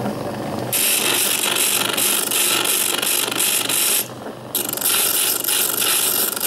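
Sturm BG6007S drill-bit sharpener's small electric motor humming while a dull 6 mm twist drill is ground against its stone: a loud, harsh hissing grind starts about a second in, breaks off briefly around four seconds, then resumes. The drill is turned slightly to grind one cutting face and then the other.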